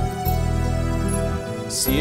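Instrumental accompaniment of a Christian ballad between sung lines: held chords over a steady bass, with the singer's voice coming back in near the end.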